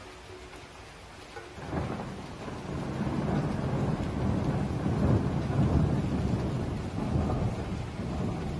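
Thunder breaks suddenly about two seconds in and rolls on as a long, deep rumble, loudest toward the middle, over rain.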